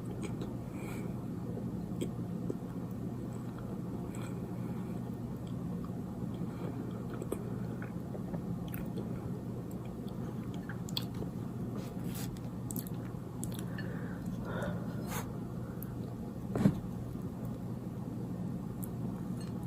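Close-miked chewing and biting of a soft cinnamon roll: wet mouth sounds and scattered small clicks over a steady low hum, with one sharper, louder click late on.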